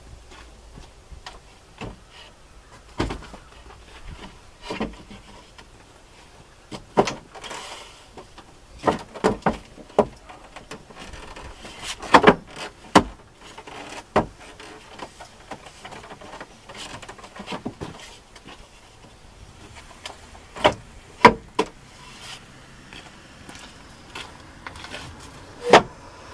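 Irregular knocks, thuds and scrapes of plywood sheets being handled and shifted on a wooden bed platform as a man kneels and moves about on it. The loudest knocks come in clusters about halfway through and again near the end.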